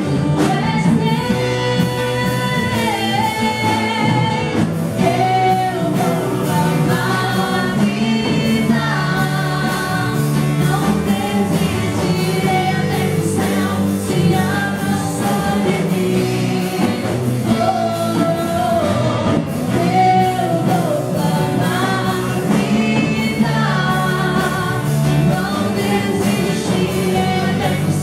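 Christian worship song: singing over a band, with sung melody lines moving between held notes above a steady bass.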